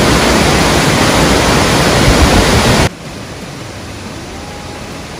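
Burney Falls pouring into its pool: a loud, even rush of falling water that drops suddenly to a softer rush about three seconds in.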